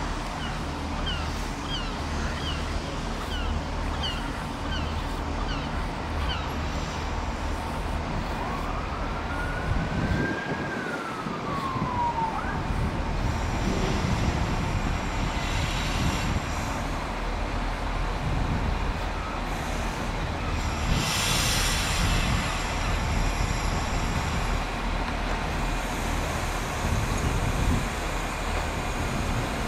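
Steady low rumble of an idling train, with a siren wailing up and falling back once about ten seconds in. A run of quick high chirps repeats in the first few seconds, and a brief hiss comes about twenty-one seconds in.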